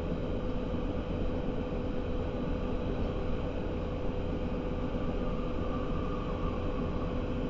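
Berlin S-Bahn class 481 electric train running along, heard inside the passenger car: a steady rumble of the wheels and running gear with a steady hum over it.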